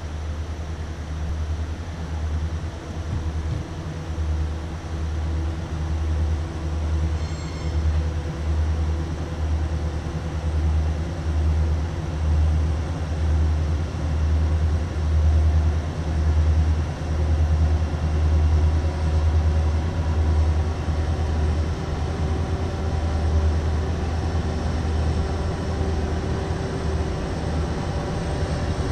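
Diesel freight locomotive rumbling as it approaches, a deep pulsing rumble with a faint hum above it that grows slowly louder.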